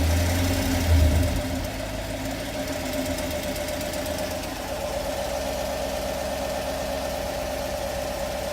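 2016 Chevrolet Camaro SS's 6.2-litre LT1 V8 running, swelling briefly about a second in and then holding steady, with a rattly tick that the owner takes for a lifter on the driver's side bank.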